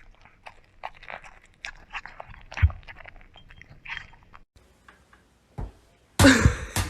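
Crunchy chewing and biting: a run of short, irregular crunches. About six seconds in comes a louder, sudden burst of noise lasting under a second.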